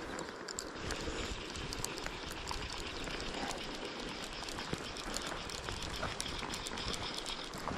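Shallow river running over a stony riffle, a steady rushing hiss, with wind buffeting the microphone. Irregular small crunches of footsteps on gravel and dry grass run through it.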